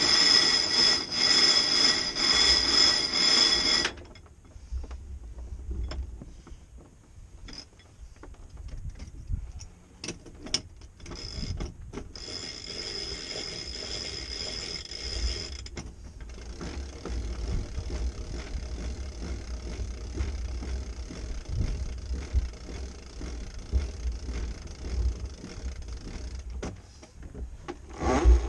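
Sailboat cabin-top winch on a Dufour 34 being cranked to hoist the jib, its pawls ratcheting in a loud spell of a few seconds at the start and a second, quieter spell partway through. Wind buffets the microphone throughout.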